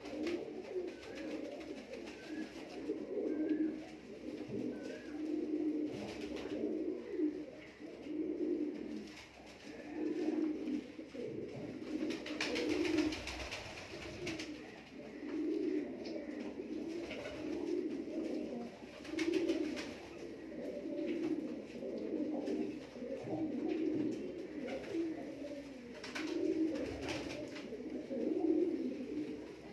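Domestic pigeons cooing: low, rolling coos repeated about once a second, steadily throughout, with a short burst of rustling noise about halfway through and again near the end.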